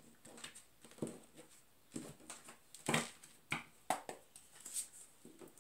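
Oracle cards being gathered off a table and handled in the deck: a handful of soft taps, slides and rustles, spaced irregularly.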